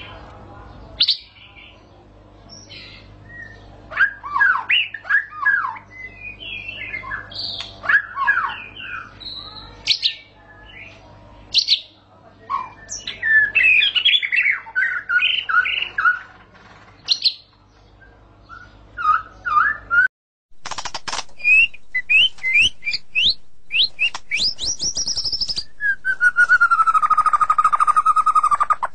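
White-rumped shama song: varied loud whistled phrases of quick rising and falling notes, over a faint low hum. After a brief break about two-thirds through, fast repeated notes lead into one long falling rolling trill near the end, the shama's prized long 'ngerol'.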